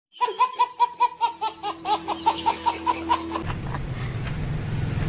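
A baby laughing in quick, rhythmic bursts of giggles, about six a second, for about three seconds. It cuts off suddenly into the low, steady rumble of a moving motor tricycle.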